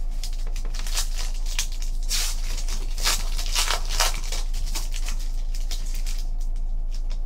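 Foil trading-card pack being torn open and peeled back by hand: a quick run of sharp crinkles and rips through the first four seconds or so, then lighter rustling of the wrapper and cards. A steady low hum sits underneath.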